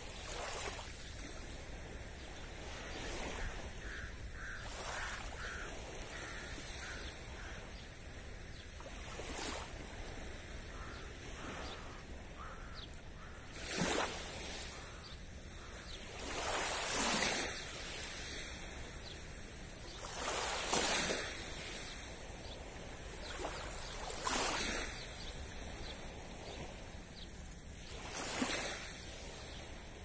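Small waves of a calm sea lapping and washing onto the beach, a soft swell every three to four seconds. A few seconds in, a bird calls in a quick run of short notes, about two a second.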